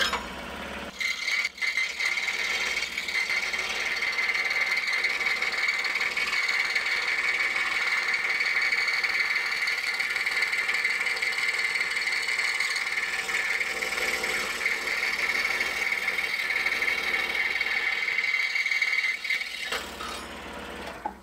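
Excalibur scroll saw cutting a bevel through wood with its blade tilted 16 degrees, heard sped up eight times: a steady, high, rattling whine. It starts about a second in and stops near the end.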